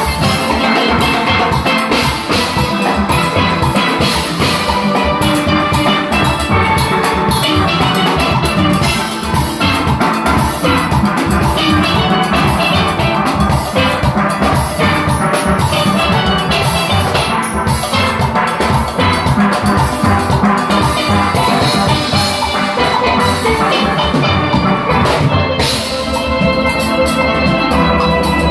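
A steel band playing live: many steel pans ringing out a melody and chords together over a steady drum-kit beat.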